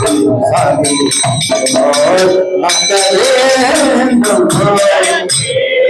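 Devotional kirtan: a man sings a chant into a microphone over a beating mridanga drum, with hand clapping and sharp metallic percussion strikes.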